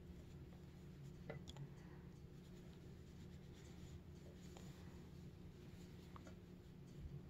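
Near silence: faint rustling and a few small clicks of hands folding a cloth robe belt and pinning it, over a low steady hum.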